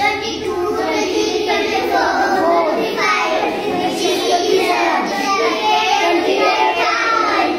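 A group of children chanting in unison in a sing-song way, as in a classroom recitation.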